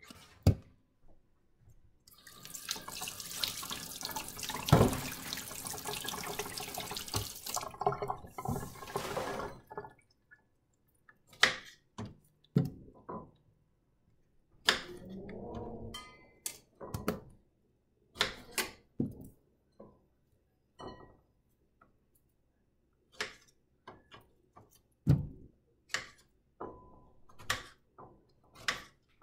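Kitchen tap running into a stainless steel sink for several seconds as fruit is rinsed, stopping about a third of the way in. It is followed by a series of light knocks and taps as the fruit is handled on the counter.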